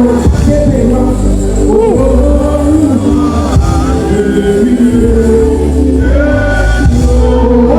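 A man singing a gospel song over instrumental backing with a strong, steady bass.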